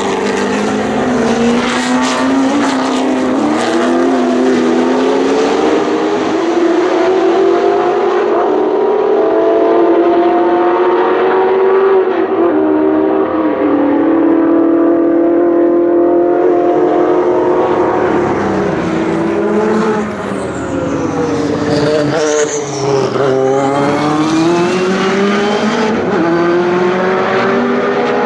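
Historic racing car engines at full song through a corner. The engine note climbs steadily through the gears with stepped shifts, then about two-thirds in the pitch drops and jumps repeatedly as a car brakes and downshifts before accelerating away again.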